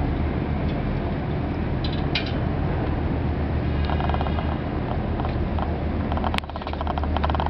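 Passenger boat's engine running with a steady low drone as the boat pulls away from the pier, overlaid by bursts of rapid mechanical rattling about four seconds in and again near the end, with a sharp click just before the second burst.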